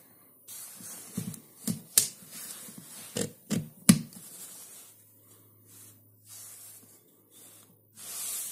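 White plastic folding tablet stand being folded shut by hand: its hinged legs and arms click sharply about six times in the first half, with plastic sliding and rubbing between the clicks, then softer handling and rubbing as it is closed flat.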